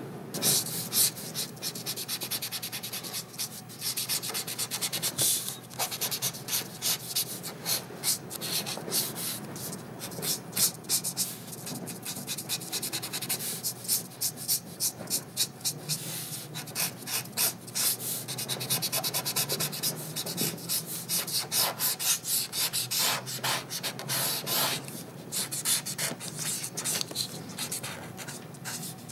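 A felt-tip ink pen scratching across drawing paper in runs of quick, short hatching strokes, with brief pauses between runs.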